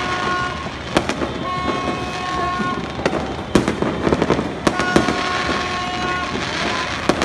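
Fireworks going off: aerial shells bursting with sharp bangs, and a dense spell of crackling about four seconds in. Twice a steady high tone sounds for a second or more among the bangs.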